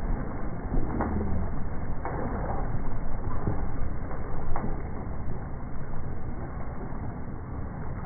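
Slowed-down, deep rumbling wash of water churned by a yellowfin tuna thrashing at the side of a sport-fishing boat, with boat noise underneath and three sharp knocks.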